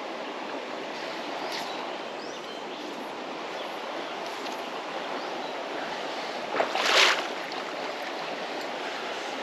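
Steady rush of creek water running, with one short, louder swish of noise about seven seconds in.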